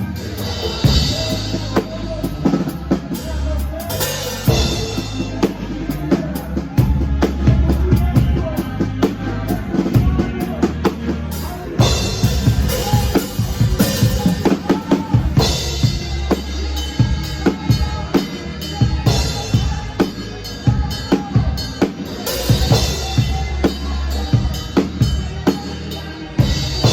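Live band music with a drum kit to the fore, steady kick and snare hits over a stepping bass line, recorded from the room.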